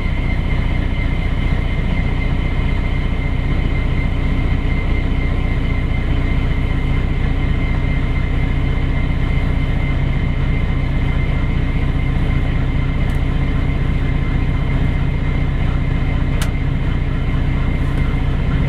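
Steady, loud mechanical drone of a running truck with its refrigeration unit switched on, holding an even hum with a thin whine above it. One light click sounds near the end.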